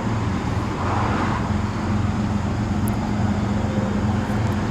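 Diesel freight locomotives working at full throttle: a steady, deep engine drone.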